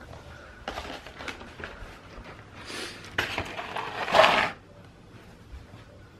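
Cardboard advent calendars being handled and slid into a stack: rustling and scraping of card, in a few bursts with the longest and loudest around four seconds in.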